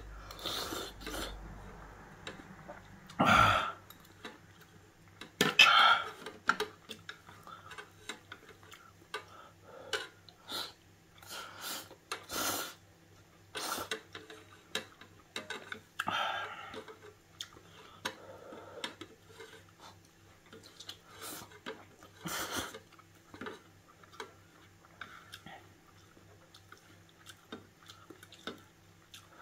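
Ramen noodles being slurped and chewed, with chopsticks clicking and scraping on the thin metal lid of a ramen pot. A few louder slurps stand out among many small taps and mouth sounds.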